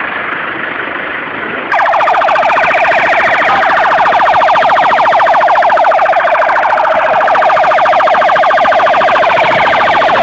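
Emergency vehicle siren sounding close by, a fast pulsing tone with slow rising and falling sweeps. It starts abruptly about two seconds in, over a noisy background of traffic and people.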